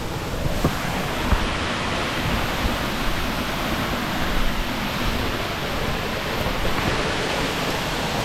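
Waterfall rushing with a steady, even roar. A couple of faint knocks come in the first second or two.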